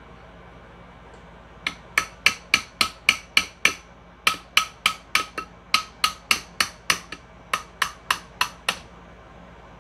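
Hammer striking metal on a Honda GX160 engine being stripped down: about two dozen sharp, ringing blows in four quick runs of roughly three a second, starting nearly two seconds in.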